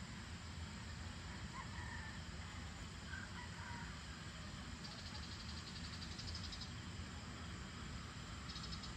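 Dusk outdoor ambience: a steady low rumble, with a distant rooster crowing faintly about two seconds in. A rapid, high-pitched pulsing trill sounds for about a second and a half around five seconds in, and again near the end.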